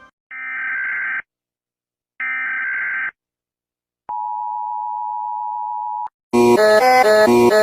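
Emergency alert system tones: two bursts of buzzy digital data tones, each about a second long and a second apart, then one steady tone held for about two seconds. After that, about six seconds in, a loud electronic tune with a fast repeating pattern cuts in.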